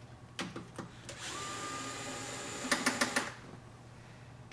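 DeWalt Gyro cordless screwdriver running for about two seconds as it backs out a screw from an enclosure cover, a steady motor whine with a quick run of clicks near the end.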